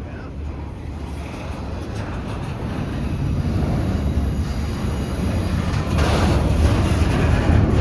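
KCS intermodal freight train's container cars rolling slowly past, a steady rumble of wheels on rail that grows louder, with more rattle and hiss from about six seconds in.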